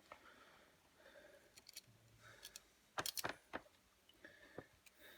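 Faint metallic clicks and taps of a pair of pliers being handled and fitted against a steel doorstop spring, with a quick cluster of sharper clicks about three seconds in.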